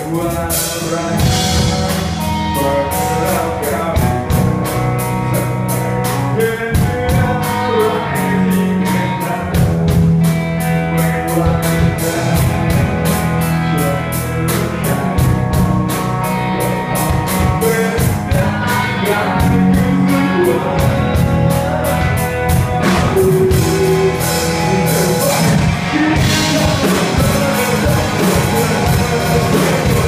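A live rock band playing a song: electric guitar, bass guitar and drum kit, with a singer on vocals.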